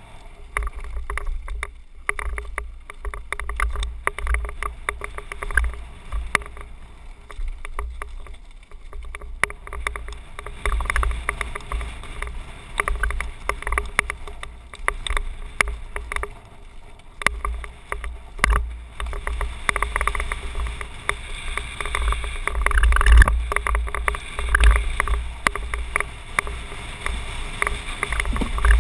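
Wind buffeting the microphone of a helmet-mounted camera during a fast mountain-bike descent on a dirt trail, with tyre noise and many short clicks and rattles from the bike over bumps.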